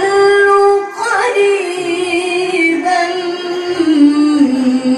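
A woman's voice reciting the Qur'an in the melodic tilawah style into a microphone, holding long ornamented notes. She takes a short break for breath about a second in, and the melody steps down to a lower pitch near the end.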